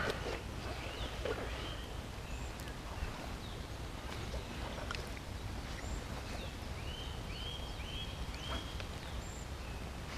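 Birds calling: scattered short chirps, and about seven seconds in a run of four quick, alike rising-and-falling notes, over a low steady rumble.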